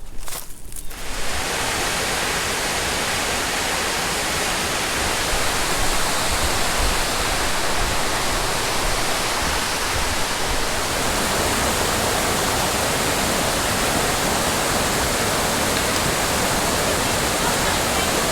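Steady rush of flowing water, like a mountain stream or waterfall, starting abruptly about a second in after a few footsteps.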